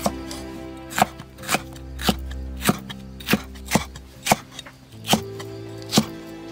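Cleaver chopping red bell pepper on a thick wooden log-section chopping block: about ten sharp chops, roughly two a second.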